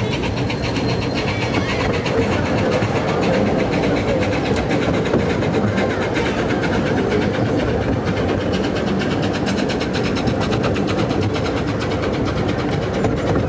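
A 12¼-inch gauge miniature steam train running steadily, heard from on board: continuous wheel-and-track noise with a fast, even run of clicks.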